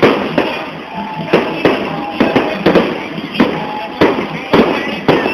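Firecrackers and fireworks going off in a rapid, irregular string of sharp bangs, several a second, over a continuous crackling din.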